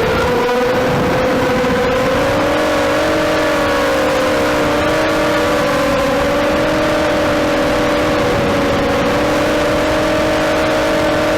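FPV quadcopter's motors and propellers whining at a fairly steady throttle, several close pitches wavering slightly together.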